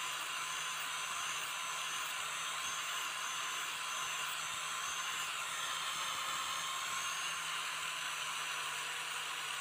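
Electric angle grinder running steadily with a sanding disc against the steel knife blade, a continuous hissing grind with a thin high whine.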